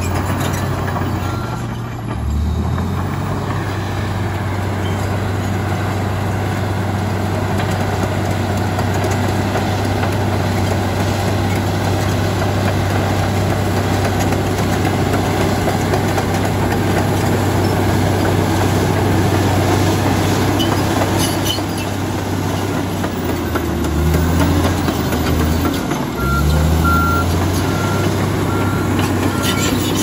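Komatsu D85EX crawler dozer's diesel engine running steadily under load as it pushes earth and rock, its pitch rising and falling twice near the end. A reversing alarm beeps at an even pace over the last few seconds.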